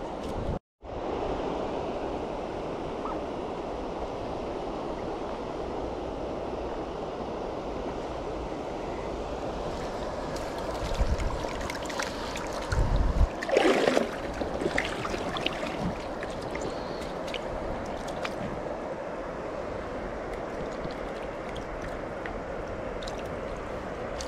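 Steady rush of river current around a wading angler. About halfway through comes a flurry of louder splashes and knocks as a hooked ayu is brought into the hand net.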